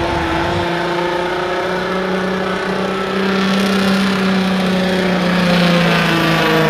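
John Deere utility tractor's diesel engine running at steady revs as it drives close past, towing the pulling sled back down the track. It makes a steady drone that dips slightly in pitch near the end.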